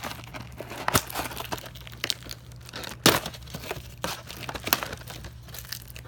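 Packaging crinkling and tearing as a box of trading card packs is opened by hand, with irregular crackles and a few sharp cracks.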